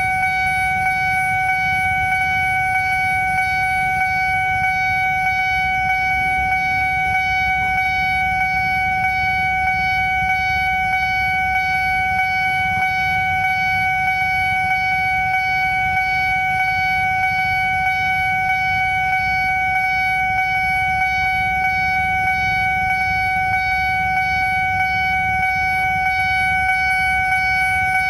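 Railway level-crossing warning alarm sounding one continuous, unbroken electronic tone, with a low rumble underneath.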